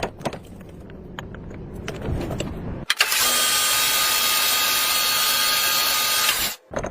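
Metal lathe machining: a low running rumble with light clicks, then about three seconds in a loud, steady hissing cut with a high whine that lasts a few seconds and stops abruptly.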